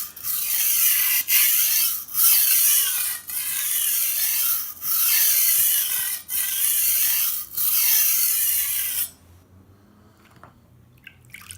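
A long steel chalef blade is stroked back and forth across a coarse sharpening stone under heavy pressure, giving a harsh, hissing grind in about eight long strokes. This is the coarse stage, which grinds metal away to form an edge on a new, dull blade. The strokes stop about nine seconds in, and a few faint light clicks follow.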